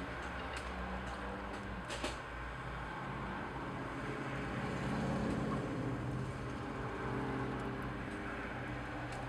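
A nursing mother cat purring steadily, a low pulsing rumble, with a faint click about two seconds in.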